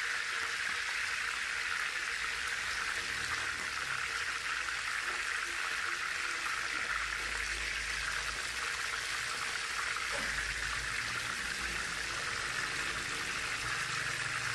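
Chicken pieces deep-frying in hot oil in a pan: a steady sizzle of bubbling oil.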